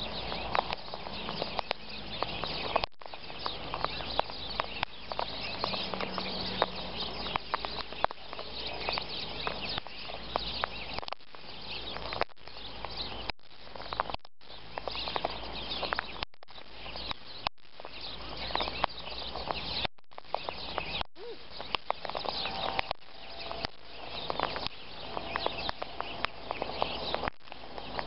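Sulphur-crested cockatoo pecking birdseed off gravelly ground right at the microphone: a rapid, irregular run of small clicks and taps of its beak on seed and grit.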